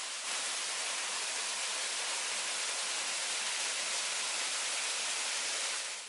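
Small waterfall pouring off a rock ledge onto rocks, a steady rush of falling water that drops away right at the end.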